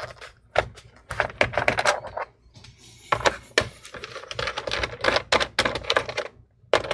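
Rapid, irregular clicking and tapping of fingers and small parts against a laptop's plastic bottom case, pausing briefly about two seconds in and again just before the end.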